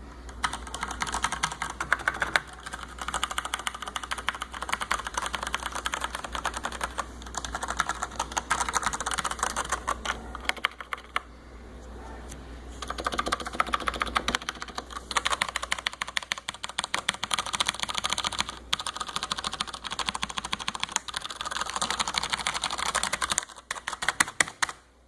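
Typing on a Cooler Master CM Storm Trigger mechanical keyboard with Cherry MX Brown switches: fast, dense runs of keystrokes, with a lull of about two seconds near the middle, and the typing stopping shortly before the end.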